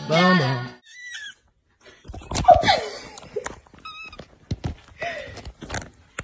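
The last of a sung music track, then a scuffle as a cat attacks a hand close to the phone: knocks and rubbing on the microphone, with short high cries and a held cry about four seconds in.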